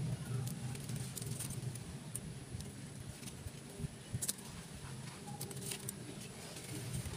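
Scattered light clicks and crackles as dry leaf sheath and husk fibre are pulled off the stem of a young coconut palm seedling, over a steady low background rumble.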